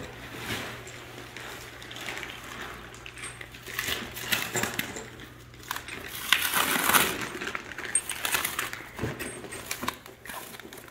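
Irregular rustling, clicks and soft knocks of equipment being handled and unpacked, including plastic wrapping, with louder rustles about four seconds in and again around six to seven seconds in.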